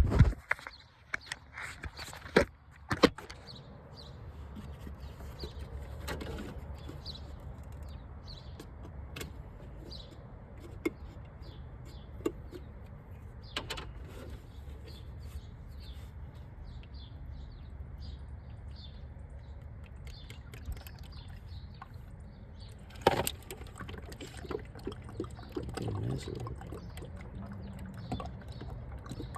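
A few sharp clunks and knocks from tools or parts being handled, clustered in the first three seconds and again about 23 seconds in. Under them runs a steady low hum, with small birds chirping.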